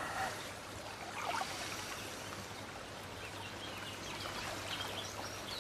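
Quiet outdoor ambience: a steady hiss of running water or rustling leaves under trees, with a few faint bird chirps.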